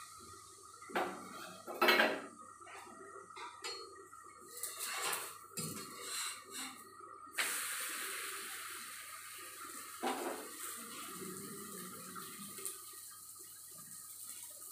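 Steel kitchen utensils clinking and knocking as a spoon and small steel bowl are handled at the stove, the loudest knock about two seconds in. About halfway through, a steady hiss starts suddenly and slowly fades.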